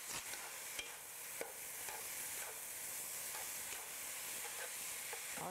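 Shredded potato strips sizzling in hot oil in a wok as they are stir-fried with chopsticks and a wooden spatula, a steady hiss with scattered light clicks and scrapes of the utensils.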